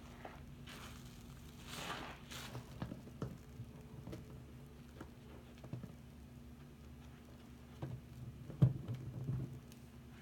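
A soap-soaked sponge squeezed and kneaded by hand in a sink of foamy water: irregular wet squelches and crackles of foam, the loudest squelch about eight and a half seconds in.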